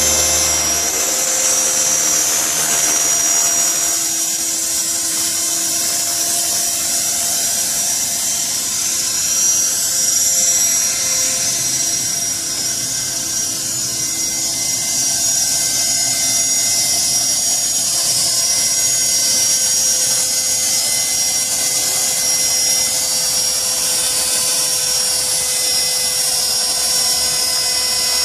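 Electric CopterX 450 RC helicopter in flight: the brushless motor and spinning rotor blades make a steady, high-pitched whine.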